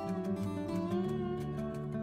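Instrumental background music: a melody of held notes changing pitch over a steady lower accompaniment.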